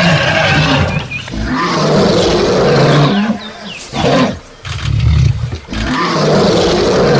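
Lion roaring: a run of several long, loud roars with brief pauses between them.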